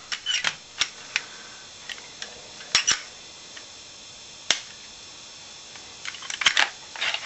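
Sharp clicks from a Glock pistol being handled and worked in the hands: a few scattered clicks, a quick double click about three seconds in, a single one past the middle, and a cluster of clicks near the end.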